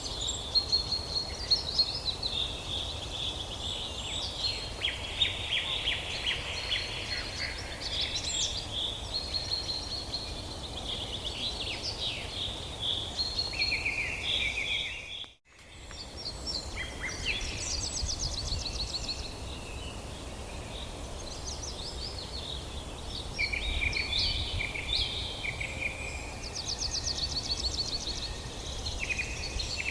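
Several wild birds chirping and trilling at once, a dense overlapping chorus of short calls, over a steady low rumble. About halfway through, all sound cuts out for a moment before the chorus resumes.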